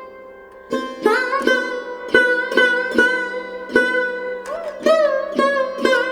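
Music: a plucked string instrument playing a melody with sliding, bending notes, plucked about twice a second over a steady drone.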